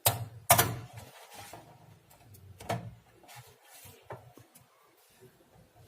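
Knocks and clatter from handling amplifier parts and wiring on a workbench: two sharp knocks in the first half second, the second the loudest, another about three seconds in, then a few faint taps.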